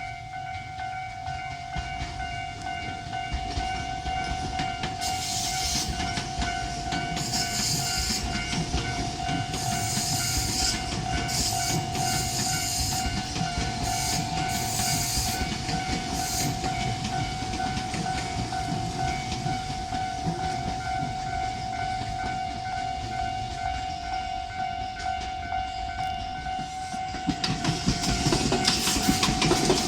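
Level-crossing warning bell ringing steadily while a six-car Tobu 500 series Revaty limited express pulls out. Short bursts of air hiss come a few seconds in, and the train's running and rail noise swells, loudest near the end.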